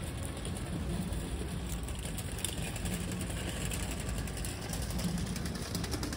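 Steady low rumble of distant city traffic, with faint crackling of dry leaves being handled close by.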